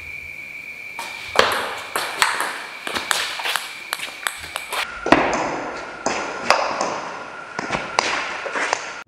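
Table tennis rally: a plastic ball clicking sharply and irregularly off bats and the table, with the hardest hits about one and a half and five seconds in. A steady high tone runs underneath, dropping lower about five seconds in.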